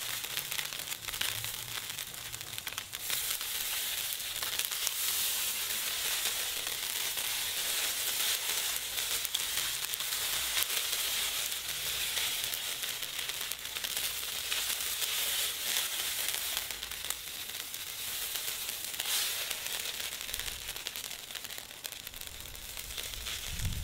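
Rice vermicelli sizzling in hot oil in a wok as it is spread flat with chopsticks, with a steady sizzle full of fine crackles. The noodles are being pan-fried on one side to brown them.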